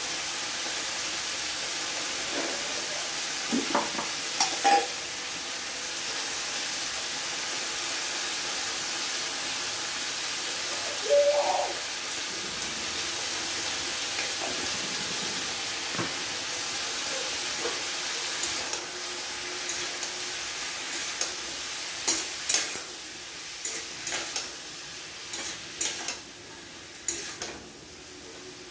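Chopped vegetables sizzling in oil in a steel wok, stirred with a spatula that scrapes and clinks against the pan now and then. About three-quarters of the way through the sizzle drops, and a quick run of clinks against the pan follows.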